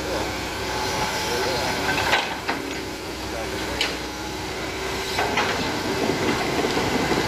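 Hitachi Zaxis 110MF hydraulic excavator working: its diesel engine runs steadily under a steady whine as the boom and arm move the bucket down into the ditch. Several sharp knocks come through, the loudest about two seconds in.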